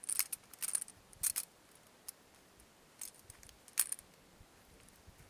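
Small metal clicks and rattles from a trap being handled and set by gloved hands: a few short clatters in the first second and a half, then one sharp click near the end.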